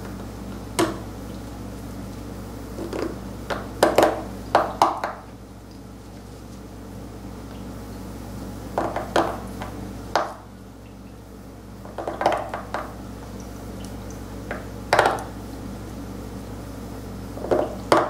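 Steel seal-carving knife cutting into a stone seal: short scratchy scraping strokes in small clusters with pauses between.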